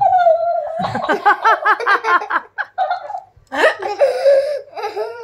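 High-pitched giggling laughter, in quick repeated bursts of rising and falling pitch.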